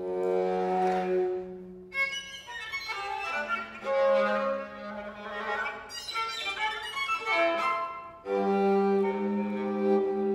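Solo viola d'amore, a bowed instrument with sympathetic strings, playing contemporary music. A held low note gives way about two seconds in to a sharp attack and a denser passage of several notes sounding together up high. Towards the end a strong low note is held again.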